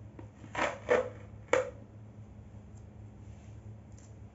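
Hands handling a Simplus air fryer's body: three short scrapes and knocks in the first two seconds, the last one the sharpest.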